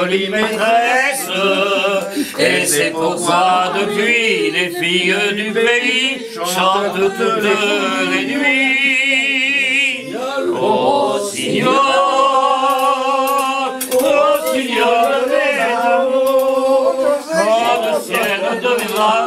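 Unaccompanied singing: a sung French song with long held notes and a wide vibrato, no instruments.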